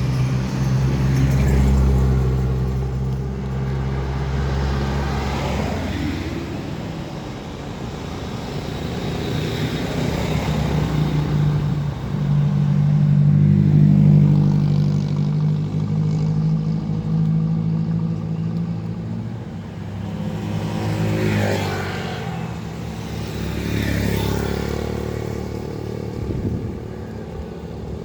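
Roadside traffic: cars and motorbikes driving past one after another, over a steady engine hum.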